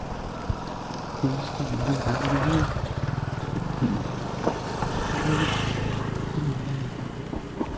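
Steady road and wind rumble from an electric bicycle riding over a rough dirt road. A man's voice faintly hums a tune in places.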